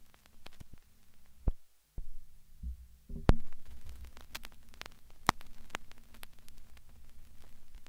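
Handling noise from a spiral notepad being held and its pages turned: scattered sharp clicks and rustles over a low hum, with a brief dropout just before two seconds in and a heavy thump about three seconds in.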